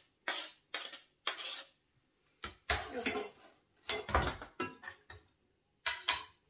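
Knife scraping chopped onion off a cutting board into a frying pan in a series of short strokes, then a louder knock and clatter about four seconds in as the board and knife are set down on the counter.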